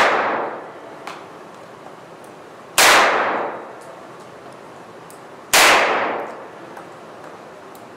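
Keserű Revenge-14M revolver firing 15 mm rubber balls on 9 mm R Knall blank cartridges: two shots about three seconds apart, each a sharp report ringing out and fading over about a second. The fading tail of a previous shot is heard at the very start.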